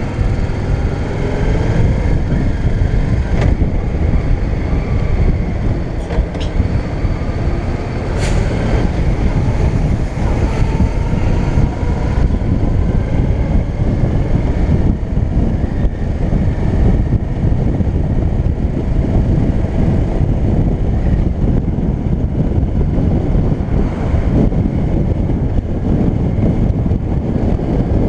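Yamaha DragStar Classic's V-twin engine running as the motorcycle cruises along a road, under heavy low wind rumble on the camera microphone.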